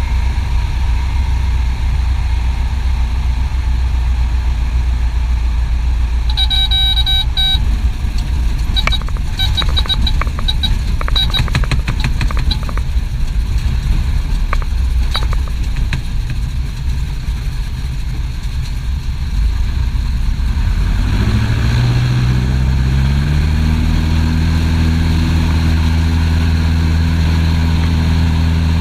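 Piper Super Cub's piston engine and propeller heard from inside the cockpit: a low, even rumble at reduced power, with a short beeping tone and scattered clicks about a quarter of the way in. About two-thirds of the way through, power comes up and the engine note climbs in steps, then holds steady at high power for the climb-out of a touch-and-go.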